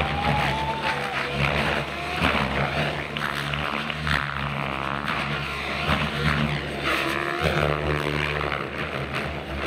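XL Power Specter 700 RC helicopter flying 3D aerobatics: a continuous buzz from its main rotor and drive. The sound rises and falls as it swoops and manoeuvres, and sweeps as the helicopter passes close around the middle and again near the end.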